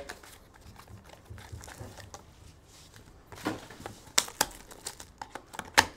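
Hands opening a Topps Finest trading-card box: cardboard and wrapper crinkling, with a few sharp clicks and snaps in the second half, the loudest just before the end.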